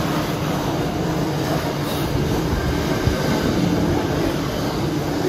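A freight train's container wagons rolling steadily past, with a continuous noise of steel wheels on the rails.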